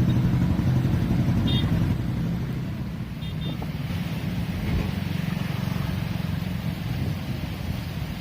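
A motor vehicle's engine running, loud for about two seconds and then fainter, with a couple of short high beeps.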